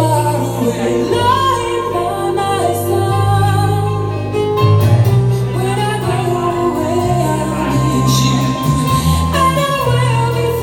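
Recorded song with a woman singing a held, flowing melody over sustained backing notes, played back over a sound system.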